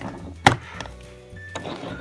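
A single sharp click of plastic toy parts knocking together about half a second in, with faint steady electronic tones from the toy playset.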